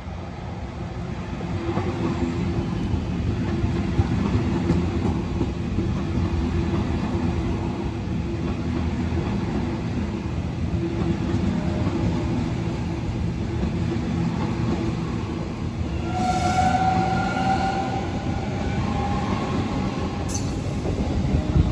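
Double-deck electric suburban train passing close at speed, a steady rumble of wheels on rails that builds over the first couple of seconds as it arrives. A brief high whine comes in about three-quarters of the way through, and a sharp click sounds near the end.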